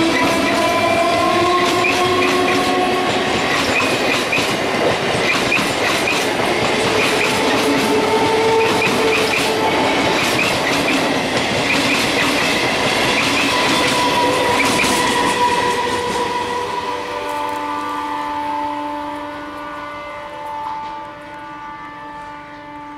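Electric multiple unit suburban train passing close by: wheels clattering rapidly over rail joints under a loud steady rush, with a few faint sliding whines. Past the midpoint the rush fades, and a steady multi-tone train horn sounds from an approaching train through the last several seconds.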